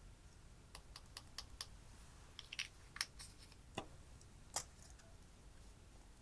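A series of small, sharp clicks and taps: five quick ones about a second in, then a few more spaced out over the next few seconds.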